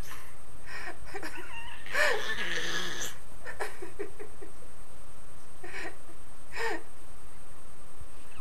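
A baby making short, high-pitched squeals and coos, about half a dozen in a few seconds. The longest and loudest comes about two seconds in.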